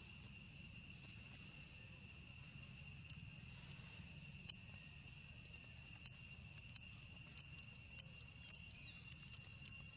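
Faint, steady shrill of insects, an even high-pitched drone that does not break, over a low rumble, with a few soft ticks scattered through.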